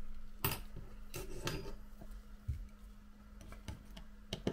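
Small metal repair tools clicking, tapping and scraping against the inside of an iPhone as its tiny internal screws are removed: several separate sharp clicks, with a brief scrape just after the first second.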